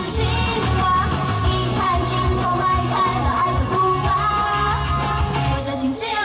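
A woman singing a pop song into a microphone over backing music with a steady beat, played through stage loudspeakers.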